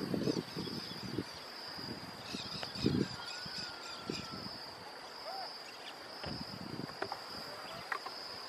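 Steady high-pitched chirring of insects, with a few faint bird calls and several low thumps, the loudest about three seconds in.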